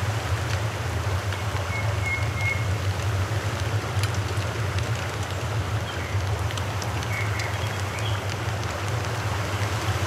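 Whole fish deep-frying in hot oil in an aluminium pot: a steady sizzle with fine crackling, over a constant low rumble.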